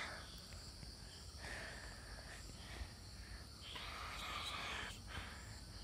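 Faint steady chirring of crickets, with two soft stretches of rustling and squelching, about a second and a half in and again about four seconds in, as hands press a lotus seedling into wet mud in a pot.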